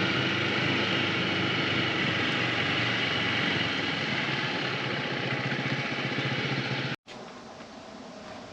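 An engine running steadily with a constant hum. It cuts off abruptly about seven seconds in, leaving a much quieter background.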